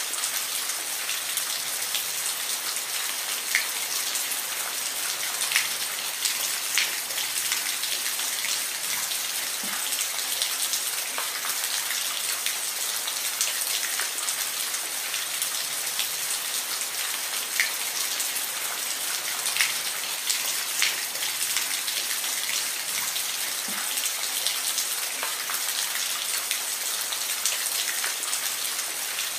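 Steady rain falling, a continuous high hiss with scattered louder individual drops striking a surface.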